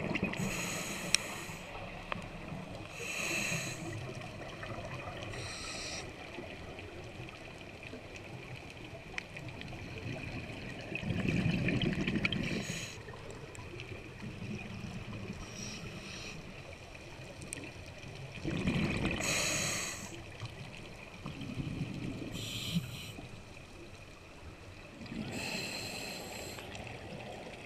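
Scuba diver breathing through a regulator underwater: short hissing inhalations alternating with longer bubbling exhalations, repeating every few seconds.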